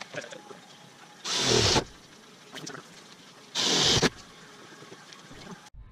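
Cordless drill boring through the thin sheet metal of a Jeep Wrangler JK hood, opening up small pilot holes. It runs in two short bursts of about half a second each, roughly two seconds apart.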